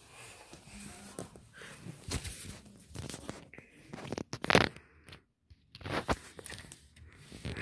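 Irregular rustling and scraping with a few sharp clicks, the loudest about four and a half seconds in: hands moving die-cast toy cars about on a hardwood floor close to the microphone.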